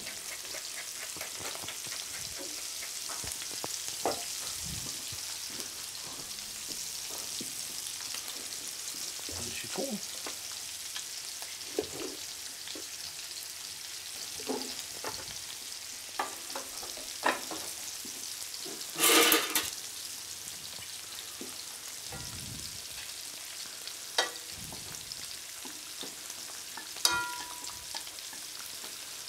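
Turbot fillet, langoustine tails and sage leaves frying in a pan, with a steady sizzle. Scattered light knocks and clicks of kitchen utensils come over it, and there is one louder brief clatter about two-thirds of the way through.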